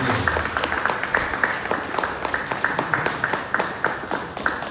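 Audience applauding, a dense run of hand claps that keeps on steadily throughout.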